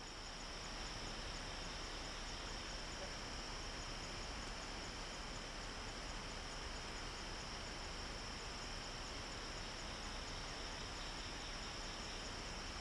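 Steady outdoor insect chorus, crickets trilling continuously at a few constant high pitches over a low background hiss.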